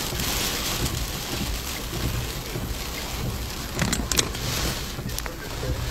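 Hurricane rain and gusting wind beating on a parked truck, heard from inside the cab as a steady rush with a low rumble. A few sharp clicks about four seconds in.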